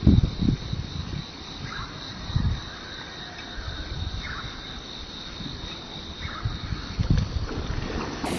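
Outdoor ambience with a steady high insect drone and a few faint short chirps, while wind buffets the microphone with low thumps near the start, about two and a half seconds in, and again about seven seconds in.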